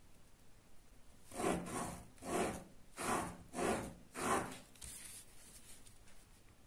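Ballpoint pen drawing along a ruler on paper: five rubbing strokes in quick succession, about two-thirds of a second apart, as a line is traced and gone over.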